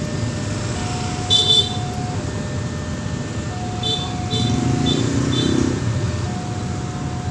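Railway level-crossing warning alarm sounding a steady two-tone signal that alternates between a higher and a lower note about every second and a half, over the low hum of waiting motorbikes. Short high horn toots come about a second in and again in a quick cluster around four to five seconds in.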